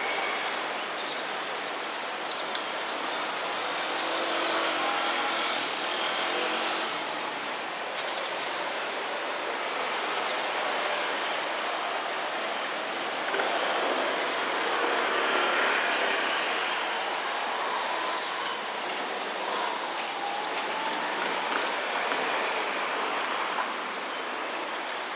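Steady outdoor traffic noise from cars passing on a road beside the railway, swelling and fading gently, with no train passing.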